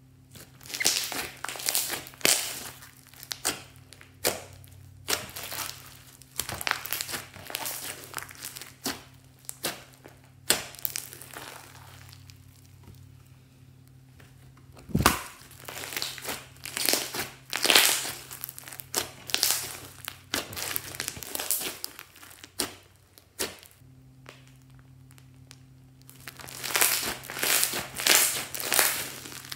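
Thick bead-studded slime being squeezed, pressed and kneaded by hand, making crunchy crackling in bursts. A single dull thud comes about halfway through.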